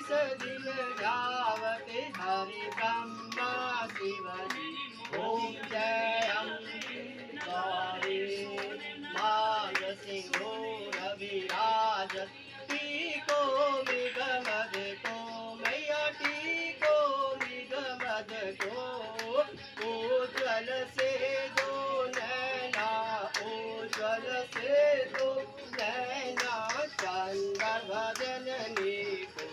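Devotional singing with music, accompanied by rhythmic hand clapping.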